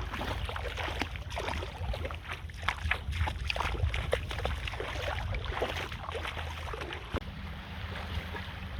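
Wind rumbling on the microphone, over irregular small splashes and trickles of shallow water.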